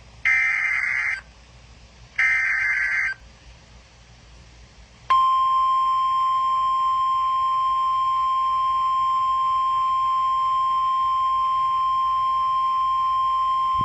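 Emergency Alert System SAME header: the last two of its three digital data bursts, each about a second long and a second apart. After a short pause comes the steady single-pitch NOAA Weather Radio warning alarm tone, held unchanged for about nine seconds. The sequence signals the start of a tornado warning broadcast.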